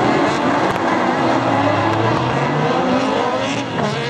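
A pack of autocross racing buggies running hard on a dirt track, several engines at once, their pitches rising and falling as they rev through the bends.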